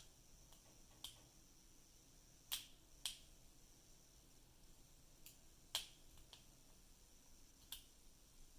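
Faint, scattered metallic clicks of a pick hook and tension tool working the pins inside an Abus 83AL/40 Titalium padlock, about seven clicks at irregular intervals over several seconds.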